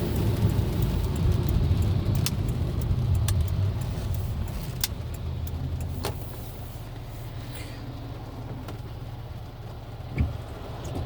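Car cabin noise while driving: a steady low engine and road drone that drops to a quieter level after about six seconds, with a few light clicks and one short thump near the end.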